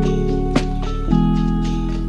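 Lofi background music: held keyboard and guitar chords with a soft drum beat, the chord changing about a second in.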